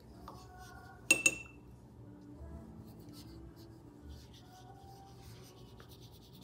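Watercolour paintbrush rubbing and dabbing on paper. About a second in there are two sharp clinks, a quarter second apart, that ring briefly.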